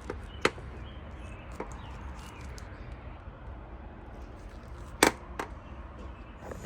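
Scattered light clicks and knocks, with one sharp, louder click about five seconds in, from plastic connectors and clips as a motorcycle wiring harness is worked free.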